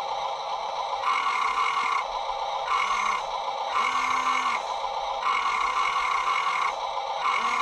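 Electric motors of the Huina 1575 RC truck's crane arm and gripper whining in short runs, about five times, as the arm is driven from the transmitter, over a steady background hum.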